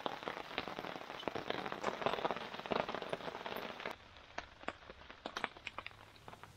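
Rain pattering densely on a surface, made of many overlapping drop clicks. About four seconds in it cuts off abruptly to a quieter background with scattered single ticks and pops.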